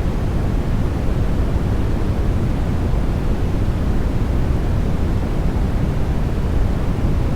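Steady, unchanging generated white noise for sleep, a continuous rushing hiss heavier in the low end than the highs.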